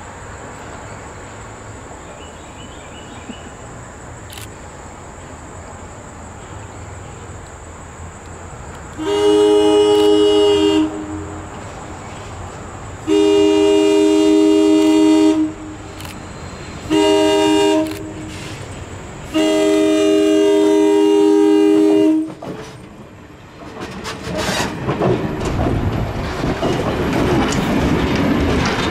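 Diesel locomotive horn, taken to be on MLW RS18u No. 1803, sounding the grade-crossing signal: two long blasts, a short one, then a long one. Afterwards the approaching train's rumble and wheels clicking over the rail joints grow steadily louder.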